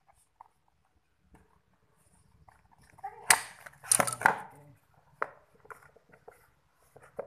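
Plastic blender motor housing being turned over and handled on a tile floor: a cluster of sharp knocks and clatter about three to four and a half seconds in, with small clicks before and after.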